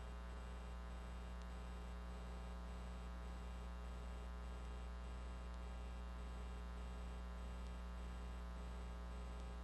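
Steady electrical hum and buzz on the broadcast audio line, unchanging throughout, with no rocket or engine sound heard.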